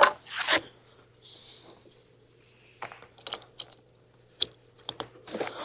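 Scattered light clicks and taps of small parts being handled as a snow plow headlight bulb and its wiring plug are fitted into the housing, with a brief soft rustle about a second in.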